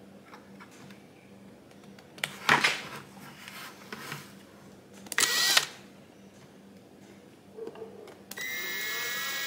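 Ridgid cordless drill starting near the end and running with a steady whine as it bores an air hole through the side of a plastic 5-gallon bucket. Before that, a few brief knocks from the bucket and drill being handled.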